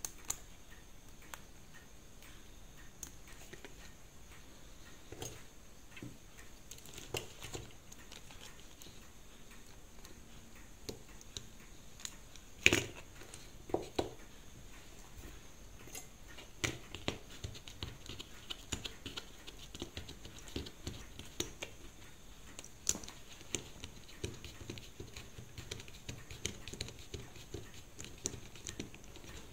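Small, irregular clicks and taps of a Seiko 5 automatic watch movement and its dial being handled and fitted into a metal movement holder, with two louder knocks about halfway through.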